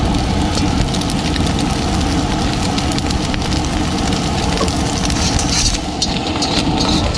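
Steady roar of a high-pressure gas burner under a wok, with egg and vegetables sizzling. Near the end the metal spatula scrapes and clatters against the steel wok.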